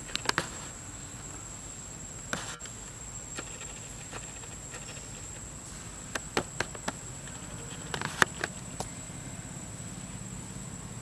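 Steady high-pitched drone of forest insects, with short clicks and taps in small clusters: right at the start, again about six seconds in, and around eight seconds in.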